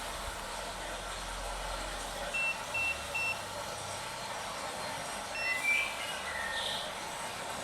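Control panel of a spinal traction massage bed beeping as it is set up: three quick high beeps in a row, then another beep and a few short sliding tones, over a steady hiss.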